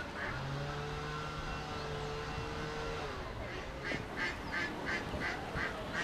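Waterfowl calling in a rapid honking series, about four to five calls a second, starting a little after halfway. Before that a steady low hum runs for the first half.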